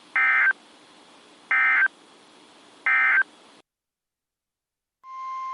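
Three short bursts of EAS SAME digital data, a harsh warbling screech repeated about a second and a half apart over faint radio hiss: the end-of-message code closing an emergency alert. After a brief silence, a steady single-pitch alert tone starts near the end, the NOAA Weather Radio warning tone that opens the next alert.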